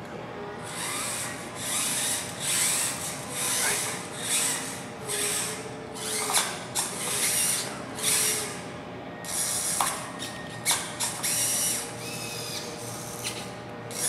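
A small VEX robot's electric motors and plastic gears whirring in short bursts of about half a second each, a dozen or more in a row with a short pause partway through, plus a few clicks and brief whines. This is the drive and the lifting arm being run in turn from the joystick and the partner joystick.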